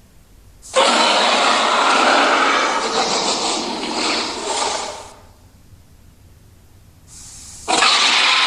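Gorilla sound effect: two long, loud breathy huffs of air. The first lasts about four seconds and the second starts near the end.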